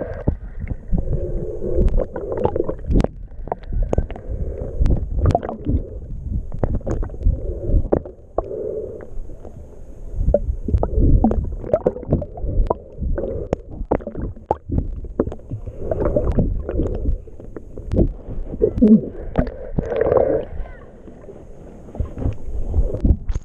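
Muffled underwater sound of a snorkeler swimming: a dull low rumbling and water movement, with frequent small clicks and knocks.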